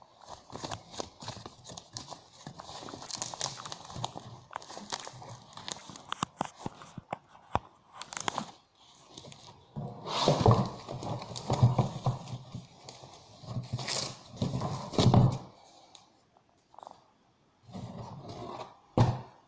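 Plastic packing bag crinkling and rustling, then louder scraping and knocking of cardboard packaging from about ten seconds in, with a couple of short bumps near the end.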